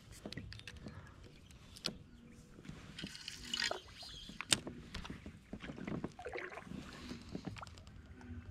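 Spinning rod and reel handled from a kayak while casting and retrieving: scattered clicks and knocks from the reel and against the plastic hull, the sharpest about four and a half seconds in, with light water sounds.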